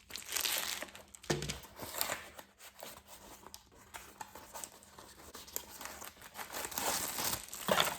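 Packaging being handled, crinkling and rustling in irregular crackles with small clicks.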